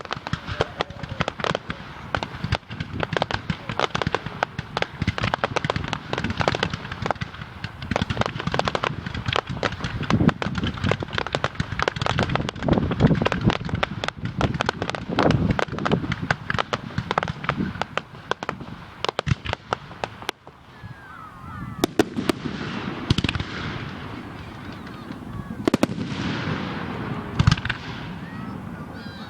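Fireworks display: a dense run of rapid crackling pops and bangs that thins out about two-thirds of the way through, followed by several falling whistles near the end.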